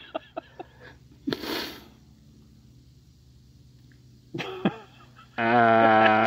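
Human vocal sounds, not words: a sharp breathy burst like a sneeze about a second and a half in. Near the end comes a short vocal sound, then a loud held voiced note at a steady pitch.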